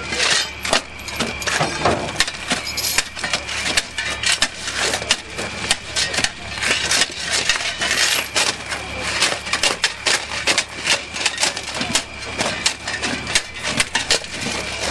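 Track crew's steel hand tools (bars, shovels, mauls) clanking and scraping against rails, spikes and gravel ballast: many irregular sharp metallic clinks and knocks. A steady low hum runs underneath.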